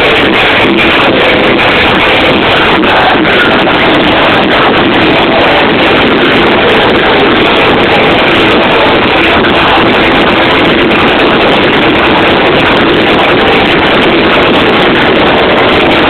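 Loud electronic dance music in a packed club, so overloaded on the microphone that it blurs into a dense, steady wash of distorted noise.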